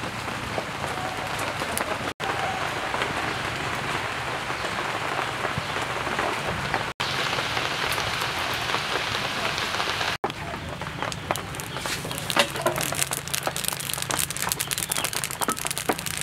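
Chickens sizzling on a wire grill over charcoal, a steady hiss that turns to dense crackling and popping about ten seconds in, broken by three brief gaps.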